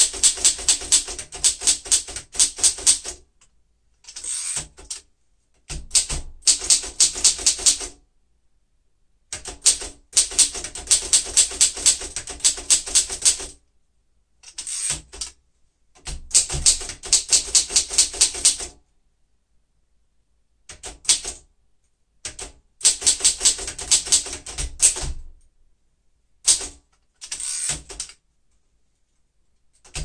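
1940 Royal Signet manual typewriter being typed on: quick runs of typebar strikes, about five or six a second, broken every few seconds by short pauses.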